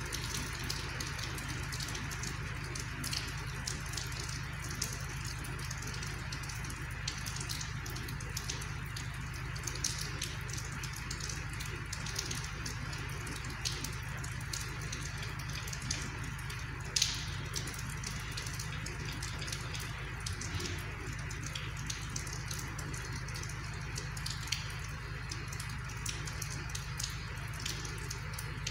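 Rain falling steadily: a soft, even hiss with many small drop taps scattered through it, and one sharper tap a little past halfway.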